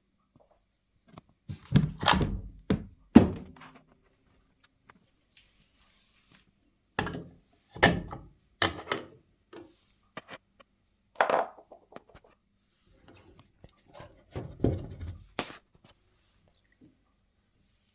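Knocks, thuds and clatters of hard parts being handled on a washing machine, in four short clusters with pauses between them.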